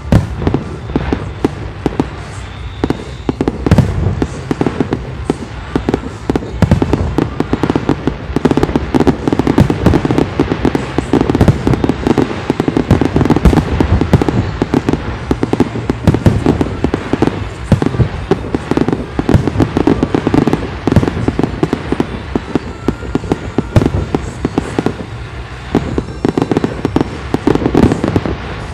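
Large fireworks display: a dense, continuous barrage of bangs and booming shell bursts, one after another with no pause.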